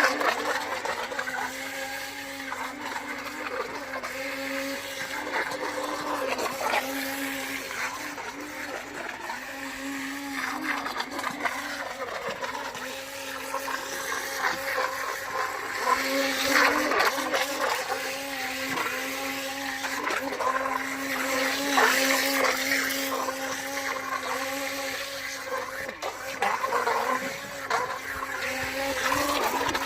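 Small electric motor of a Gizmo Vine T04 mini RC speed boat whining steadily, cutting out and picking up again several times as the throttle is let off and reapplied.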